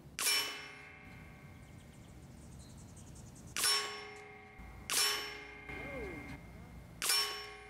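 Four shots from a .25-calibre Benjamin Gunnar regulated PCP air rifle, a few seconds apart. Each is a sharp crack followed by a metallic ring that fades within about half a second.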